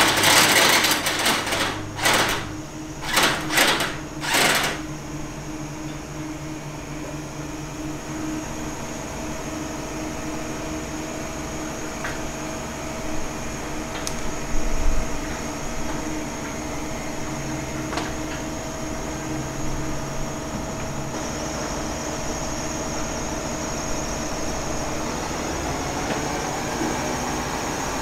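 Engine running steadily with a low, even hum, joined in the first five seconds by four or five loud, short bursts of hiss.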